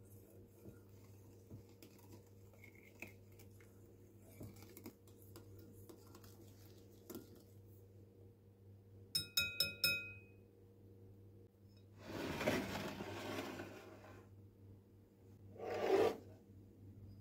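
Wire whisk ticking faintly against a ceramic mixing bowl as liquid is stirred. About nine seconds in comes a quick run of sharp, ringing clinks. Then there are two short rushing noises, a longer one about twelve seconds in and a brief one near the end.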